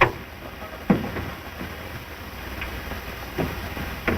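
A few short knocks and bumps over the steady hiss and hum of an early sound-film soundtrack.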